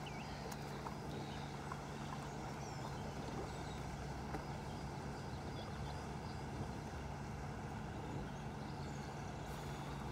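Lake aeration unit running with a steady low mechanical hum, with two faint ticks midway.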